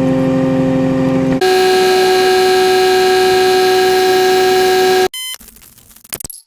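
A synthetic sound effect: a long, steady horn-like buzzing tone, lower for about the first second and a half, then jumping to a higher steady tone for about three and a half seconds. It then cuts off into a few faint short blips.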